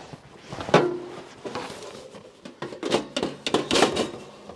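Gear being handled: a string of knocks, clunks and rattles as objects are moved and set down, with a brief low hum about a second in.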